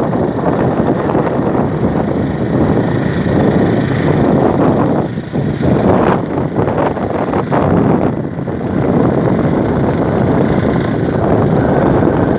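Wind buffeting the microphone of a vehicle driving along a road, a loud steady rushing noise with two brief dips, about five and eight seconds in.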